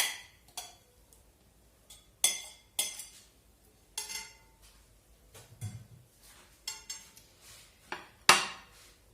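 Kitchen utensils and dishes clinking and knocking, a series of about nine sharp, irregularly spaced clinks with a soft dull knock near the middle.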